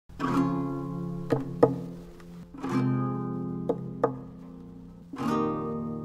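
Instrumental song intro: a chord struck about every two and a half seconds and left to ring, with two short, sharp taps between each chord.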